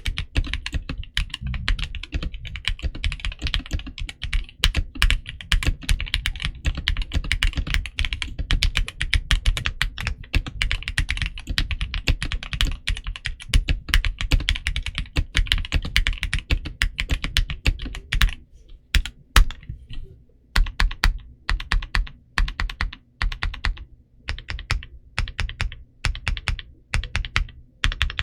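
Typing on a Gamakay SN75 mechanical keyboard with a polycarbonate plate, a quick stream of keystroke clacks. After about eighteen seconds it slows to separate, spaced-out key presses.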